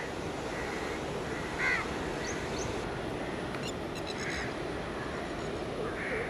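Crows cawing a few times, the loudest call about two seconds in, over a steady wash of wind and sea surf. A quick run of high chirps comes about halfway.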